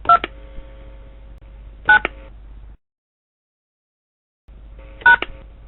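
Touch-tone telephone keypad presses: three short DTMF beeps, each two tones sounding together, the first two about two seconds apart and the third about three seconds later, over a faint hum on the line.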